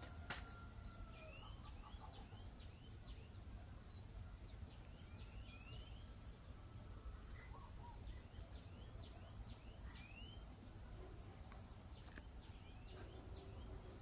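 Faint bird chirps, quick rising notes in a few short runs, over a steady high-pitched insect drone.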